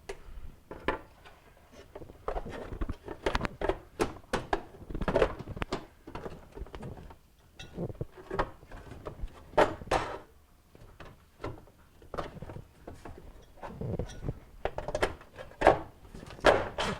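Irregular clunks, taps and scrapes of plastic and sheet-metal parts being handled as a built-in microwave's vent fan housing and fan assembly are worked on by hand. The sharpest knocks come about ten seconds in and twice near the end.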